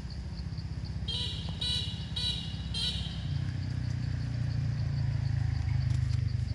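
Low engine rumble of a motor vehicle, growing louder in the second half. About a second in come four short high-pitched tones in quick succession, roughly half a second apart.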